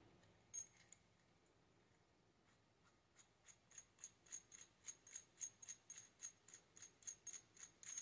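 Faint, quick run of small metallic clicks, about three to four a second, starting about three seconds in after a single click: the metal parts of a freshly soldered coax cable connector being worked by hand.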